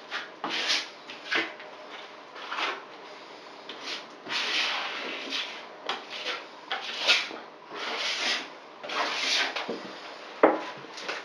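Liquid waterproofing membrane being brushed onto cement backer board: a series of uneven rubbing, scraping strokes, with a single sharp knock near the end.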